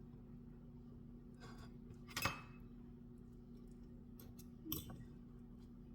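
A metal serving utensil scraping and then knocking against cookware while a slice of pie is cut out, the loudest knock about two seconds in with a short metallic ring and a softer second knock near the end, over a steady low hum.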